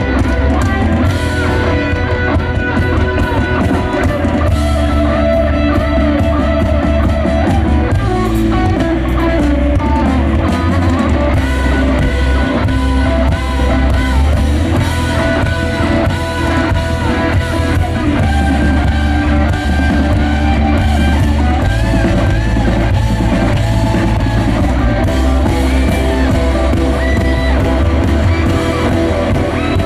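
Live rock band playing loud, with guitars, bass and drum kit, and a voice singing over it at times.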